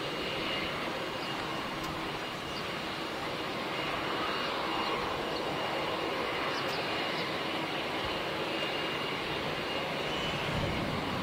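Aircraft engines running steadily on an airport apron: a continuous rushing noise with a faint high, thin whine.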